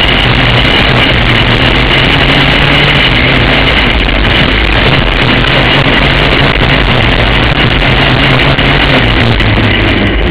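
Racing kart engine running hard at racing speed, heard close from on board the kart. The sound is loud and continuous, with the engine note dipping and rising a little.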